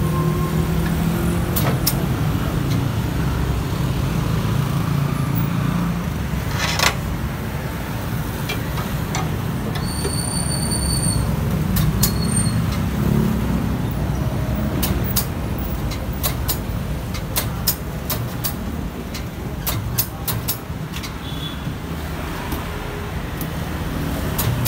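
Steady rumble of road traffic, with scattered sharp clicks and knocks, most of them in the second half, and a brief high whine about ten seconds in.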